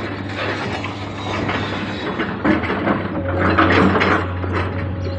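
Hydraulic rock breaker on a Komatsu 220 excavator hammering stone in rapid blows, over the excavator's steady diesel engine drone, which grows louder about three seconds in.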